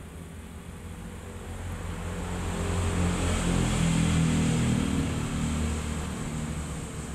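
Low engine hum of a passing vehicle, swelling to a peak about four seconds in and then fading.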